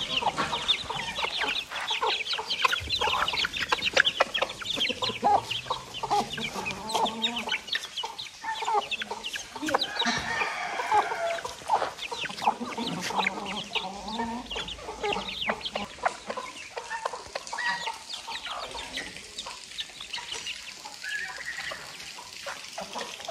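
Domestic chickens clucking, many short calls overlapping without a break.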